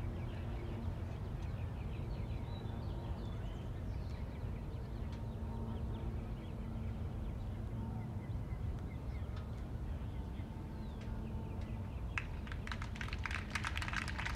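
Outdoor sports-ground ambience: a steady low wind rumble with faint distant voices and bird chirps. About twelve seconds in, a quick run of sharp claps or knocks begins.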